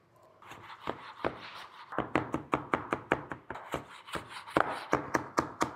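Chef's knife chopping fresh parsley on a plastic cutting board: a run of quick, uneven knocks, about three or four a second, loudest near the end.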